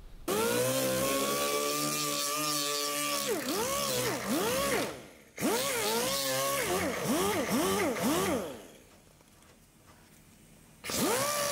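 A handheld power tool spins up sharply and runs with a whine, its pitch repeatedly dipping and rising. It stops about eight and a half seconds in and starts up again near the end.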